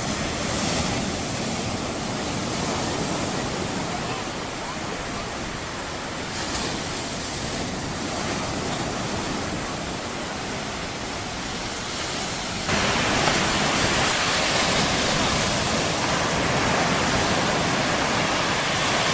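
Mediterranean Sea surf washing on a sandy beach, a steady rush of waves. About thirteen seconds in it suddenly becomes louder and brighter.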